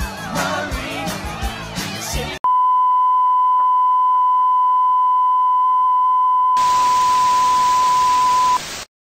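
Music with singing cuts off abruptly a couple of seconds in and is replaced by a loud, steady, single-pitch beep like a television test-signal tone. About four seconds later the hiss of TV static joins it, and both cut off together just before the end.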